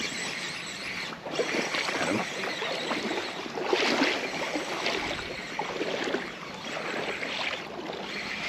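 Small waves lapping at the pond's edge, with wind gusting unevenly across the microphone.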